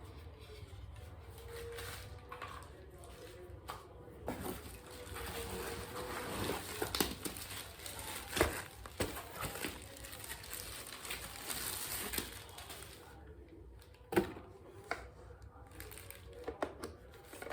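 Handling noise from a cordless phone and its packaging: rustling and crinkling, with a few sharp clicks and knocks, the loudest about eight seconds in and another near the end.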